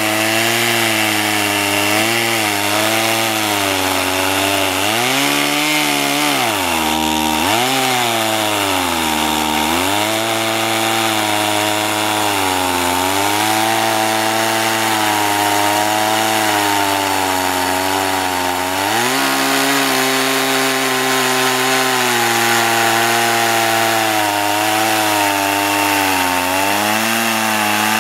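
Stihl 018 two-stroke chainsaw with a 12-inch bar cutting into a big hardwood trunk, running near full throttle. Its pitch sags and recovers under the load of the cut, dropping deeply twice about five to ten seconds in and once more near twenty seconds.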